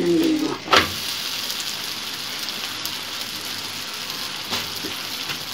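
Msemen flatbread sizzling as it fries on a large hot metal pan. About a second in there is a sharp slap as it is flipped over onto the pan, then a steady sizzle.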